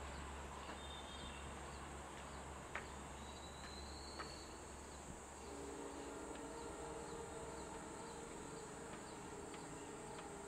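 Quiet trackside ambience. Insects chirp faintly in short ticks a few times a second, while a passing train's low rumble dies away in the first half. A faint steady hum comes in about halfway.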